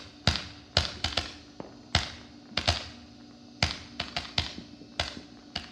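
Consumer multi-shot firework cake firing a rapid series of shots: about a dozen sharp bangs, roughly two a second at uneven intervals, each with a short echoing tail, stopping just before the end.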